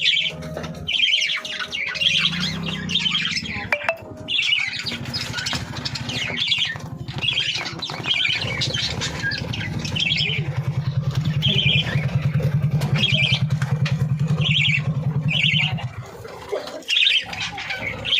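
Young birds chirping and squawking over and over, short high calls about once or twice a second. A low, fast buzzing hum runs underneath through the middle of the stretch and stops shortly before the end.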